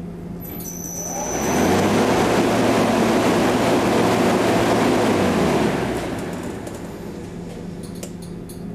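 Americraft 24-inch tube axial fan with a non-sparking aluminum airfoil propeller starting up. A steady motor hum is joined by a rush of moving air that swells over the first two seconds and holds. After about six seconds the air noise eases off to a lower level as the fan slows.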